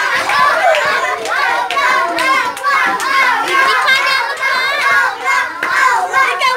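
Several children's voices shouting and chattering excitedly over one another, high-pitched, with a few sharp claps among them.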